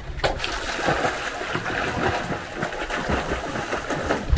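Seawater lapping and splashing in the shallows: a steady watery wash with scattered small splashes.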